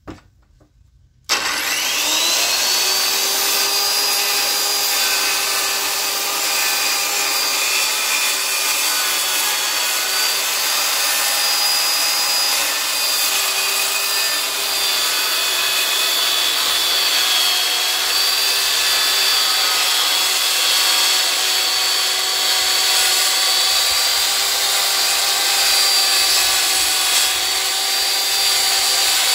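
Circular saw starting about a second in with a rising whine, then running steadily under load as it rips lengthwise through a cedar slab.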